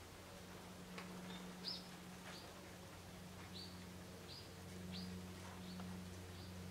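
A small bird calling repeatedly, about eight short high chirps that drop in pitch, spaced a little over half a second apart, over a faint steady low hum.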